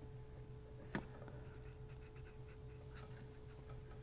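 Small flat-blade screwdriver clicking against an old radio speaker's metal frame as it is worked under the edge of the cone: one sharp click about a second in, then a few faint ticks, over a faint steady hum.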